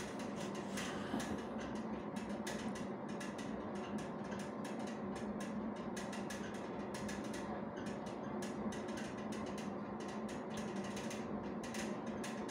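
GE MRI scanner running a PROBE single-voxel spectroscopy sequence: a steady hum with a fast run of gradient clicks and taps.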